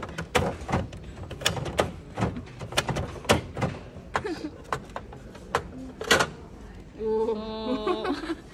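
Plastic capsule from a capsule toy machine being handled and opened: a quick series of sharp plastic clicks and knocks. A brief voice-like sound comes near the end.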